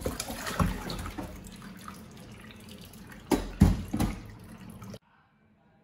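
Water draining and dripping from freshly boiled noodles in a stainless steel mesh colander over a metal sink, with a few loud knocks about three and a half seconds in. The sound stops abruptly about five seconds in.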